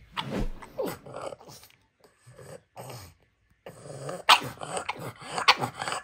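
A pug making a string of short grumbling, growl-like vocal sounds in irregular bursts, with a quieter stretch in the middle and a busier run of them in the last two seconds.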